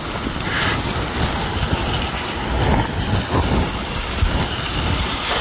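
Flour-dredged chunks of chuck roast frying in hot oil in a cast-iron skillet: a steady sizzle as more pieces are dropped in. A low, gusty rumble of wind on the microphone runs underneath.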